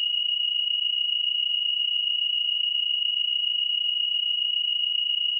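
Steady, high-pitched synthetic tone with fainter higher tones above it, unchanging: the output of Max/MSP's pfft~ resynthesizing a graphically transformed spectrogram. It sounds like an electronic alarm beep held on.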